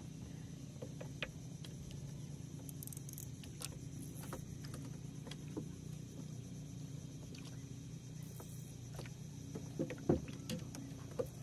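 Fishing rod and line being handled on a small outrigger boat: scattered light clicks and taps over a steady low rumble, with a few louder knocks near the end.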